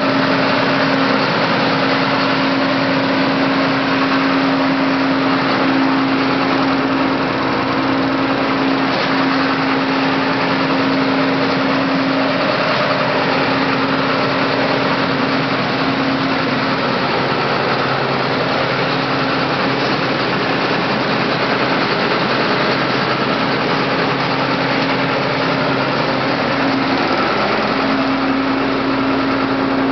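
John Deere 9600 combine's diesel engine idling steadily, heard close up, with a constant hum under an even mechanical noise.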